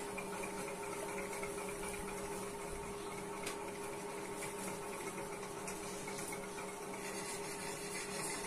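Steady room noise: a constant low hum with hiss, with no distinct events.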